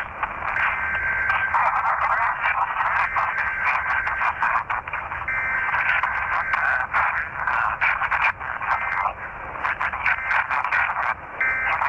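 Weak, noisy radio reception: a thin, tinny signal buried in hiss and crackling static, with many sharp clicks and a faint steady whistle that comes and goes.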